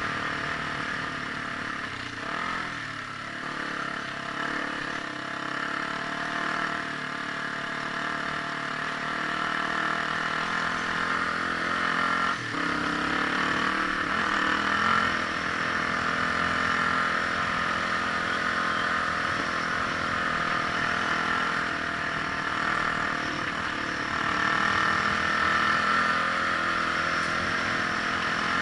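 Vehicle engine running as it drives along, its pitch dipping and rising a few times as the revs change.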